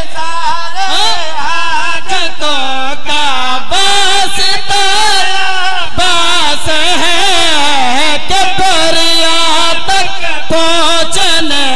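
A man's voice chanting a devotional qasida in long, melismatic held notes whose pitch wavers and bends.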